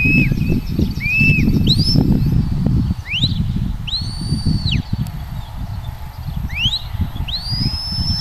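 Shepherd's whistle commands to a herding dog: a series of clean whistles, some quick upward sweeps and some arched notes that rise, hold and drop, the longest held near the end. Under them runs a steady low rumble of wind on the microphone.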